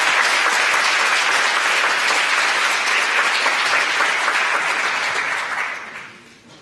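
An audience applauding, dense clapping that dies away about six seconds in.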